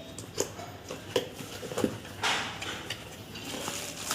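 Cardboard packaging being handled and opened: a few light knocks and taps, then a brief rustle about two seconds in.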